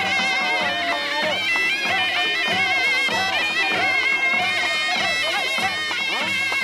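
Panche baja band playing: a shehnai's wavering reed melody and drone over a steady beat of drums.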